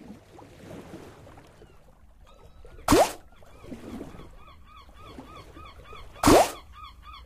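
Online slot game sound effects: a short, loud rising sound about three seconds in and again about six seconds in, as each free spin of the reels begins. Between them run quieter game tones, with a fast repeating chirp in the second half.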